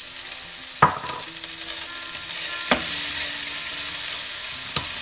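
Chopped bell peppers and spring onion sizzling in hot oil in a kadhai as they are stir-fried, with a steady sizzle and three sharp knocks of the metal spatula against the pan, the first the loudest.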